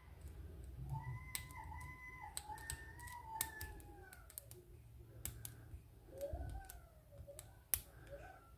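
Lock pick and tension wrench working the wafers of a Lockwood rim cylinder: a string of light, irregular metal clicks and ticks as the wafers are set. A faint wavering tone rises and falls alongside.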